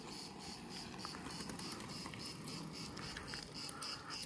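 Insects chirping in a steady high-pitched pulsing rhythm, about four pulses a second, over a low steady rumble.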